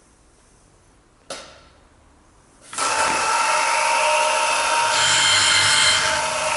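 AYEN DB 1000 multi-spindle dowel boring machine: a sharp knock with a short hiss about a second in, then the spindle motor starts suddenly and runs with a steady whine. Near the end the sound grows louder and hissier for about a second.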